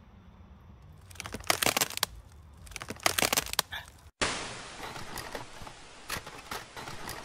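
Two bursts of loud crackling and clattering over a low hum, then a sudden cut to a steady hiss of TV static with scattered crackles.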